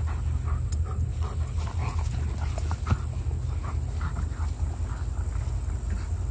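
A large Great Dane–Great Pyrenees cross dog panting hard close to the microphone, the quick breaths dying away after about three and a half seconds as she moves off. One sharp click about three seconds in, over a steady low rumble.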